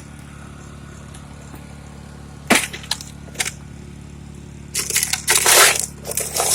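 A sharp crack about two and a half seconds in, a couple of small clicks, then a loud, longer noisy clatter near the end, over the steady low hum of a running generator.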